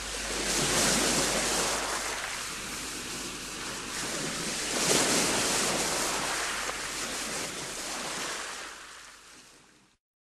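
Sea waves washing onto a shore, rising in two swells about four seconds apart, then fading out near the end.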